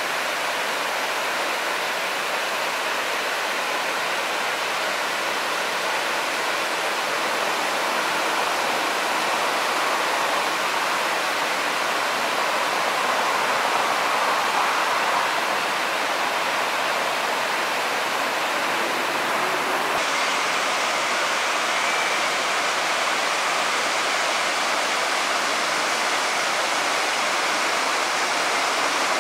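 Water pouring down terraced rock waterfalls into a lagoon: a steady rushing. About two-thirds of the way through, the hiss thins out abruptly.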